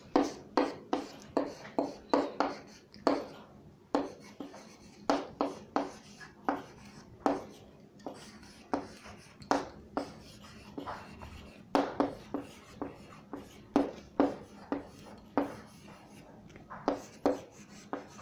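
Handwriting: a long run of short, quick writing strokes, about two a second, with brief pauses between groups.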